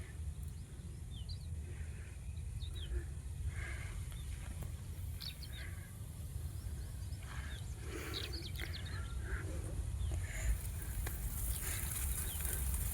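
Small birds chirping and calling now and then over a steady low rumble, with a high hiss coming in near the end.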